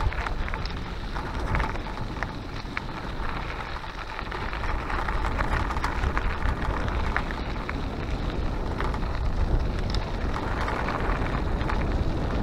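29er mountain bike tyres rolling over loose gravel: a steady crunching hiss with scattered small stone clicks, over a low rumble of wind on the microphone.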